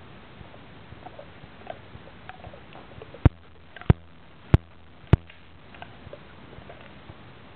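A large dog gnawing a dried pig ear: small crackles and clicks of teeth on the chew throughout, with four loud sharp cracks about half a second apart in the middle as it bites down hard.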